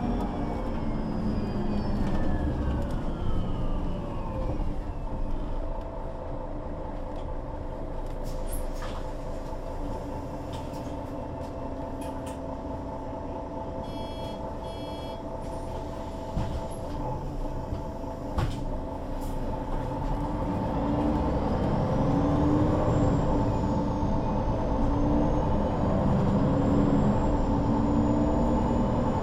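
MAN NL 263 low-floor city bus's diesel engine and drivetrain, with a falling whine as it slows at the start, then a quieter stretch of low running. About halfway through comes a short run of beeps, and near the end the bus pulls away louder with a rising whine that levels off.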